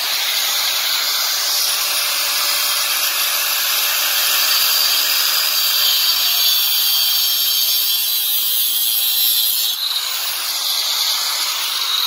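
Angle grinder with a cut-off wheel cutting through the metal canister of a fuel filter and pressure regulator, with a steady high-pitched grinding that eases for a moment about ten seconds in.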